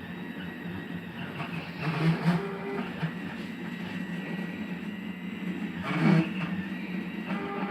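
Home-built CNC router running, its stepper motors humming steadily. About two and six seconds in, the axes make louder moves whose whine rises and falls in pitch as they speed up and slow down.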